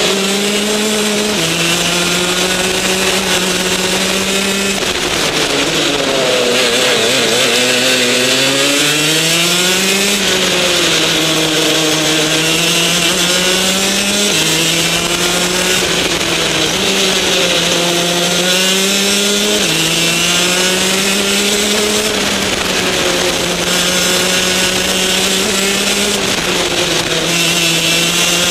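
Rotax DD2 kart's 125cc two-stroke engine at racing speed, heard from the driver's seat. The engine note climbs and falls through the corners with several sudden jumps in pitch, and drops low about six to nine seconds in before winding up again.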